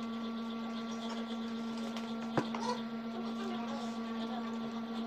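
Steady electric hum of a small motor or appliance, with one sharp click about halfway through.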